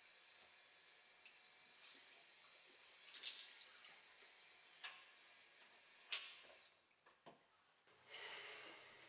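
Water running faintly from a basin tap into a sink, with a few small splashes and clinks. The flow stops about seven seconds in, and a short rush of water noise follows near the end.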